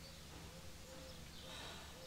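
Faint outdoor background: a steady low hum, with a faint held tone that breaks off and comes back several times and a brief hiss in the second half.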